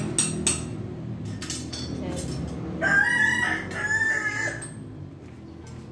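A rooster crowing once, about three seconds in, for nearly two seconds. Several sharp clicks or knocks come before it.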